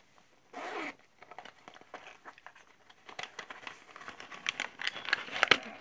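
Ipsy makeup bag being unzipped and its contents handled: rustling and crinkling of packaging with small clicks, getting busier and louder over the last couple of seconds. A short, louder sound comes about half a second in.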